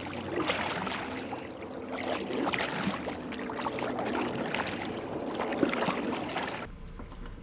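Kayak paddle splashing and sloshing water in repeated strokes, over a steady low hum; the sound cuts off suddenly near the end.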